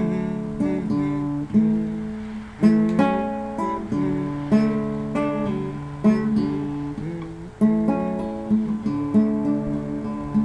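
Acoustic guitar being strummed in an instrumental break: chords struck about once a second and left to ring between strokes.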